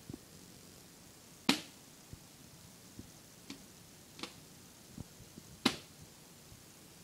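Plastic frisbee clacking against a tiled floor as a boxer paws at it: scattered sharp clacks, two loud ones about a second and a half in and near the end, with lighter taps between.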